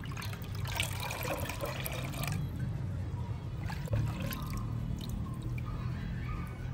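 Fermented maize drink (tchakpalo) being scooped from a metal pot with a bowl and poured back in, liquid splashing and trickling, over a low steady rumble.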